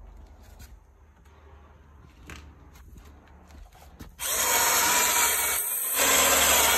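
Light clicks and knocks of roof-basket bars and plastic connectors being handled, then about four seconds in a loud, harsh rasping noise for about two and a half seconds that cuts off sharply.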